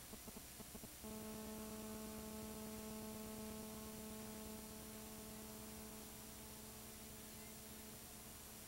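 Faint steady electrical hum with high hiss, the background noise of an old analog videotape transfer after the programme ends. The hum sets in about a second in, after a second of faint flickering pulses, and eases slightly past the middle.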